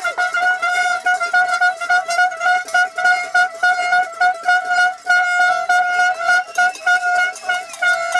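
A hand-held plastic horn blown by a spectator in quick repeated toots on one steady note, about two blasts a second.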